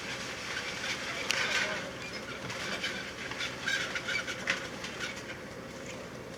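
Sweet corn harvesting rig running steadily, a low mechanical drone with a faint held tone, overlaid by scattered knocks and clatter.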